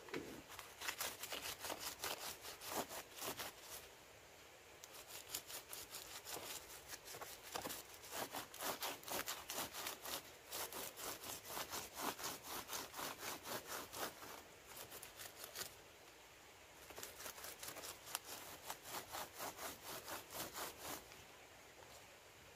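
Rustling and crackling of a palm leaf being worked and wrapped around a kithul palm's flower stalk, in several runs of quick crackles with short pauses between them.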